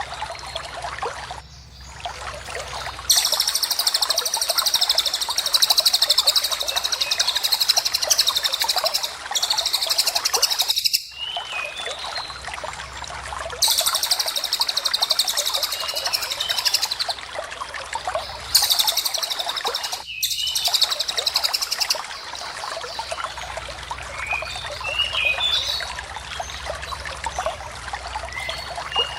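Recorded cage-bird song of lovebird and cililin: several long runs of fast, high trilling lasting a few seconds each, separated by short breaks, with scattered short chirps near the end, over a steady hiss.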